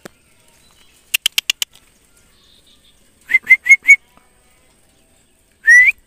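Person whistling to call a tame bird down: a quick run of five sharp ticks about a second in, then four short rising whistles, and one longer rising whistle near the end.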